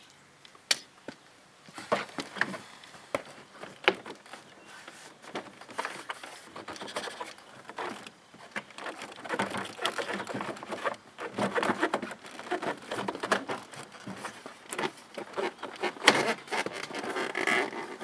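Plastic retaining clips of a pickup's inside door panel popping loose as the panel is pulled off the door by hand, heard as irregular sharp clicks and knocks with scraping and rustling of the plastic panel between them.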